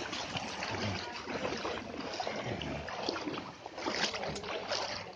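Floodwater sloshing and swishing as it is moved through, with a few sharper splashes about four seconds in.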